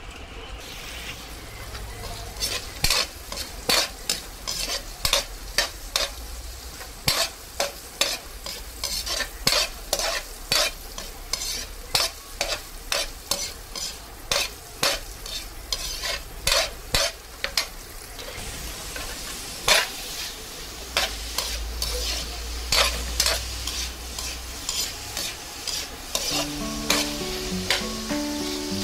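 Metal spatula repeatedly scraping and knocking against a wok as chopped pork and green chilies fry with a steady sizzle.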